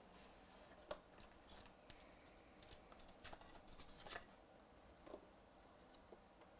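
Faint handling sounds of a cardboard trading-card box being opened and its foam insert lifted out: a cluster of small scrapes and clicks between about one and four seconds in, otherwise near silence.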